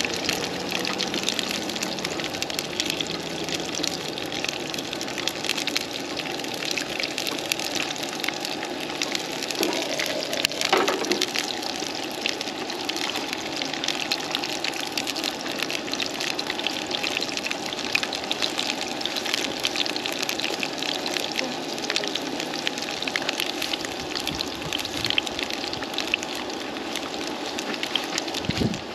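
Asparagus sizzling in hot oil in a frying pan on a propane camp stove: a steady, dense crackle of fine pops.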